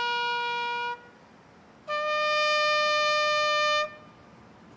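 Bugle sounding the last two long notes of a call: a held note that stops about a second in, then after a short pause a higher note held for about two seconds.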